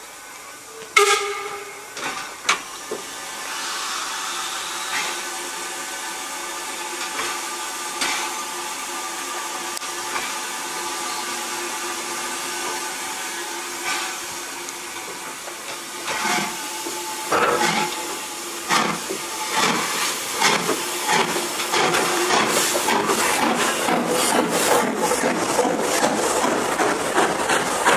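Steam tank locomotive No. 24 Calbourne, an LSWR O2 class, setting off. A short whistle sounds about a second in, then steam hisses steadily with a held tone. From about halfway the exhaust beats start, slow at first and quickening as the engine gets its coaches moving.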